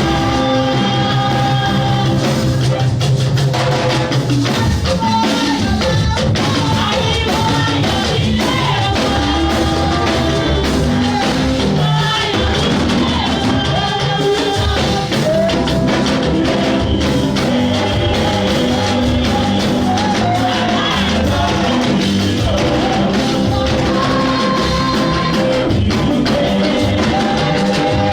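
Music from a band with drums, with voices singing a melody over it.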